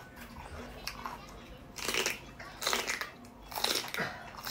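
Raw celery stalk being bitten and chewed. Quieter chewing first, then loud crisp crunches about once a second from about two seconds in.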